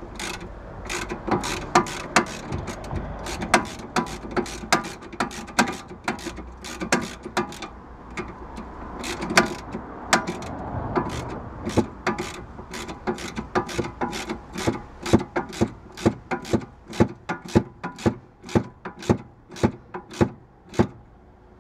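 Hand socket ratchet clicking as it turns the nut on a car's front sway bar end link, one run of sharp clicks after another. In the second half the strokes settle into an even rhythm of about two clicks a second.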